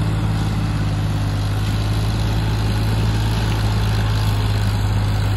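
Sonalika DI 35 tractor's diesel engine running steadily under heavy load, pulling a fully loaded soil trolley up a steep climb.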